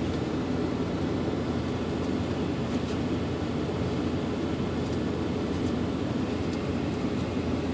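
Steady low hum of a vehicle's cabin, with a few faint rustles as a hand feels through paper slips in a cap.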